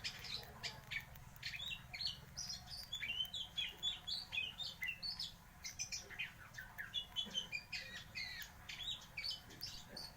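Oriental magpie-robin (kacer) singing a fast, continuous rolling song of short, varied chirps and whistles, worked through with mimicked fill-in phrases (isian).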